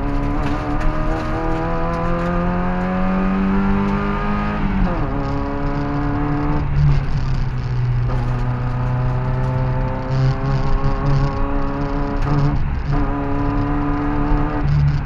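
Opel Manta B's four-cylinder engine under hard acceleration, heard from inside the cabin: the engine note rises in pitch for about five seconds, drops sharply, then climbs again with two brief dips later on.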